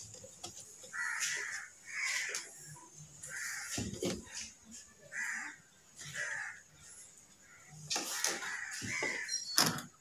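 A crow cawing repeatedly, harsh calls about once a second, with a few knocks from hands pressing the front panel onto the wooden speaker cabinet.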